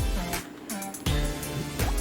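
Background music: sustained notes over a bass line with regular drum hits.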